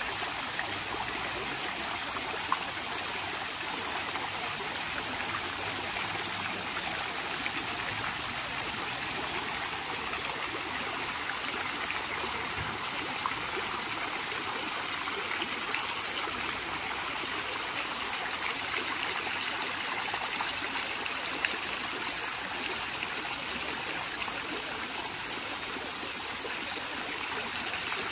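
Steady rain falling: an even, unbroken hiss with a few faint drop ticks now and then.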